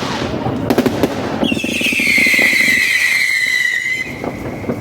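'Smoke Elephant' firework going off: a fast, steady crackling sputter. About one and a half seconds in, a loud whistle joins it and falls slowly in pitch over the next two and a half seconds.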